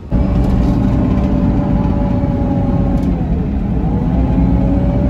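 A vehicle riding along: a loud, steady low rumble with a faint whine that dips and rises again about three seconds in.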